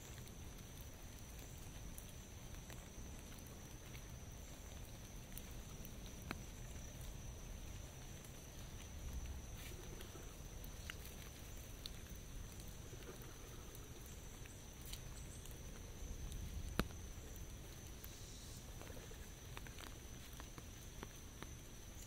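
Light rain dripping on an umbrella and the wet leaves around it, with scattered sharp drop ticks, the loudest about seventeen seconds in. A thin steady high tone sits underneath.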